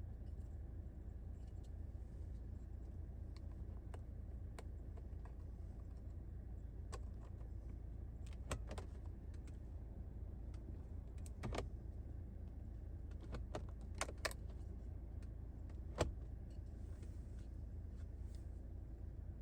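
Scattered sharp clicks and light rattles of small hard objects being handled, a few in quick clusters and the loudest one about two-thirds of the way through, over a steady low hum.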